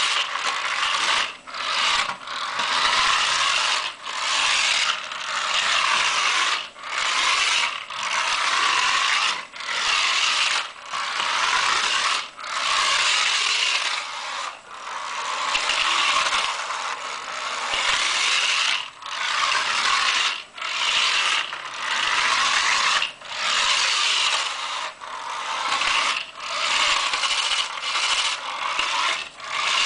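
A toy BMW Z1 racer car's small motor and gears whirring with a ratchety grind. The sound dips briefly every one to two seconds.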